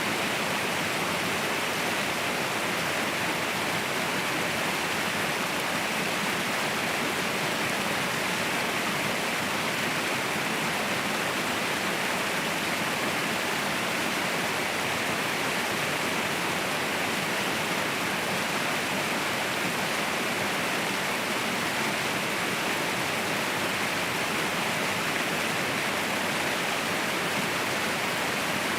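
Mountain waterfall rushing, a steady, unchanging roar of falling water.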